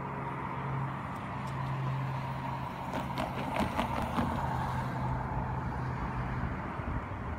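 A car driving over a railroad grade crossing, its tyres clacking over the rails in a quick run of knocks about three to four seconds in, over a steady engine and traffic hum.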